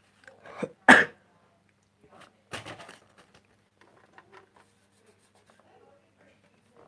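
Handling noise: scattered sharp clicks and knocks, the loudest about a second in and another about two and a half seconds in, then a run of fainter ticks.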